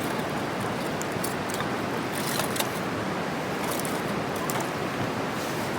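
Wood campfire burning, with irregular sharp crackles and pops over a steady rushing noise.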